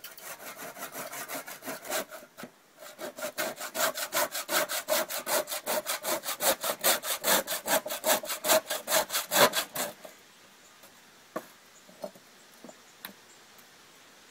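Hand saw cutting through a frozen bone in quick, even rasping strokes, about four or five a second. The sawing breaks off briefly a little after two seconds in, resumes, and stops about ten seconds in, followed by a few light taps.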